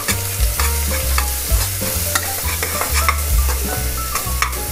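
Metal spoon stirring finely chopped onions frying in oil in a pressure cooker, the spoon scraping and clicking against the pot many times over a steady sizzle and a low rumble.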